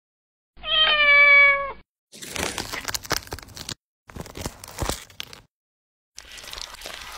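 A cat meows once, a drawn-out call that falls slightly in pitch. It is followed by two stretches of crackling, tearing noise and softer crackling near the end, as a durian's spiky husk is pried apart.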